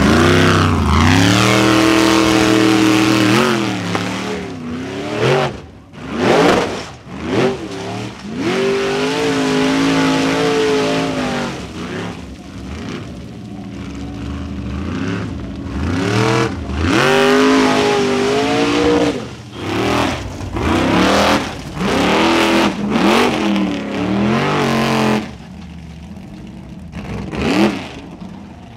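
Formula Offroad 4x4 buggy engines revving hard over and over under load on a steep dirt hill climb, the pitch swinging up and down with the throttle. A run of short, sharp throttle bursts follows in the second half, and the engine falls quieter near the end.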